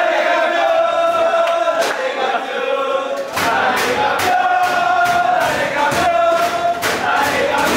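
A group of men chanting loudly in unison, a team's victory chant. About three seconds in, a steady beat of sharp hits joins in, about two a second.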